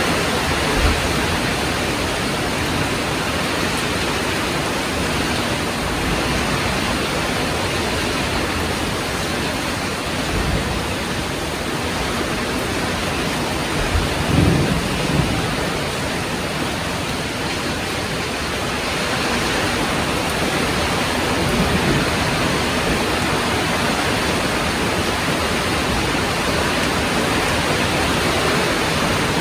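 Heavy rain falling steadily, a dense even hiss. A few brief low thumps break through, the loudest about halfway through.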